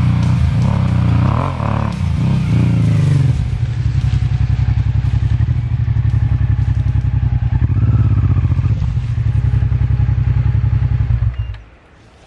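Motorcycle V-twin engine revving up and down for the first few seconds, then running steadily under way. It cuts off sharply near the end.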